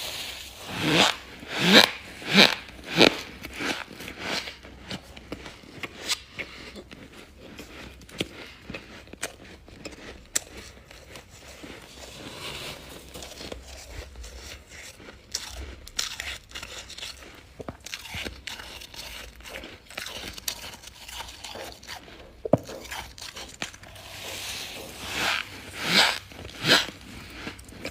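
Freezer frost being bitten and chewed. A quick run of loud crunches comes in the first few seconds and again near the end, with quieter crackling chews in between.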